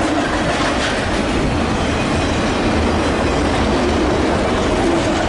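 Train rolling on the rails: a steady, loud rumble of wheels and running gear.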